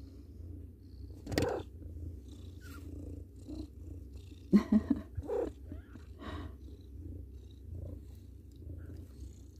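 Mother cat purring steadily as her kittens nurse, with a few brief, louder noises about one and a half seconds in and again around the five-second mark.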